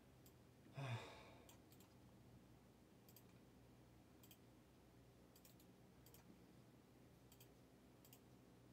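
Faint, scattered clicks of a computer mouse and keys, about one every second or so, with a short sigh about a second in.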